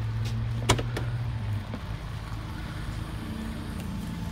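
Mercedes-Benz GLC 300 tailgate latch clicks open about a second in, then a steady hum as the power tailgate lifts.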